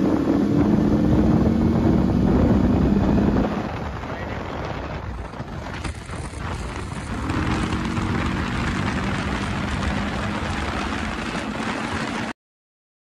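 Yamaha R15 V3's single-cylinder engine running under way. The engine note eases off about three and a half seconds in and picks up again about seven seconds in, before the sound cuts off abruptly near the end.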